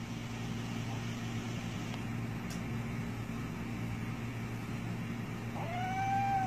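A steady low hum, then about five and a half seconds in a kitten lets out a long, slowly falling cry of pain as a botfly (Cuterebra) larva is pulled from its neck with forceps without sedation.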